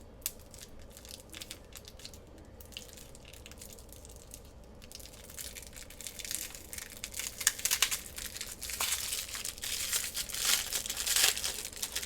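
Packaging crinkling and rustling as a roll of washi tape is handled and unwrapped, faint and sparse at first, then dense and louder from about halfway through.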